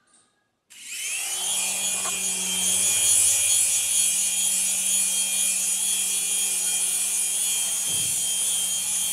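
Small electric motors of a toy RC helicopter spinning up with a rising whine, then running steadily with a high whine and rotor whir.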